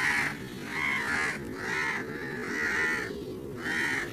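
A bird calling over and over in a steady rhythm, about one and a half calls a second, over a steady low background noise.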